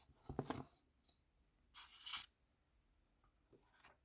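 Handling noises of an old tool roll being unrolled: a few quick light clicks about half a second in, then a brief rustle around two seconds.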